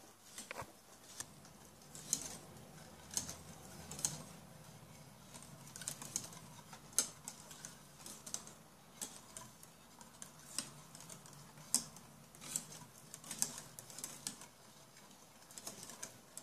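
Irregular light clicks and taps of a metal utensil knocking against a stainless-steel pot as the milk and rice mixture is stirred, over a faint low hum.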